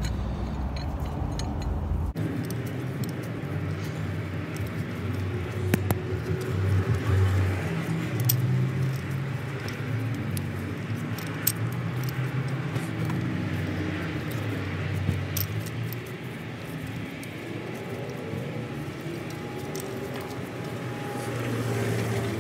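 Steady low vehicle rumble, with a few light, scattered metallic clicks from a thread tap being turned by hand into a diesel injector cup to cut threads for the puller.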